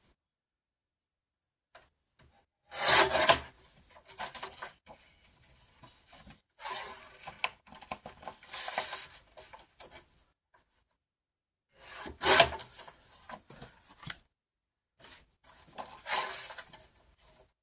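Sheets of white cardstock being cut and handled: several separate bursts of scraping and rustling, the loudest about three seconds in and again about twelve seconds in, with near-silent gaps between.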